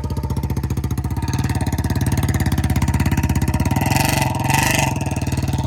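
Royal Enfield Bullet's single-cylinder engine running hard under throttle as the motorcycle is ridden through mud, a steady fast beat that builds slightly, with a short hiss about four seconds in.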